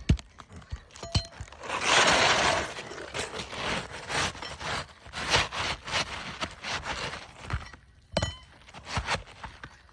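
Irregular cracking, snapping and scraping of asphalt roofing material being worked by hand, with a louder scraping rush about two seconds in.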